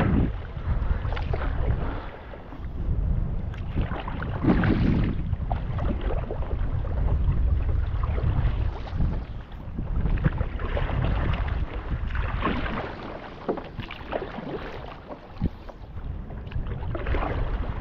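Wind buffeting the microphone with a heavy low rumble, over the swish and splash of a stand-up paddle blade pulling through the water in irregular strokes every second or few.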